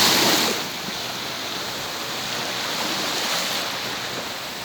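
Sea waves washing onto the shore. A louder rush in the first half-second, then a steady wash.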